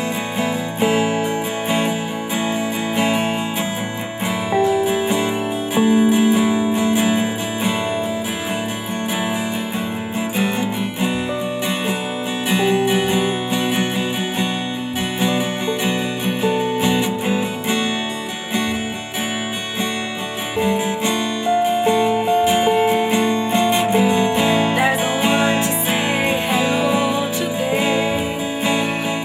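Instrumental music with strummed acoustic guitar and a melody of held notes over it.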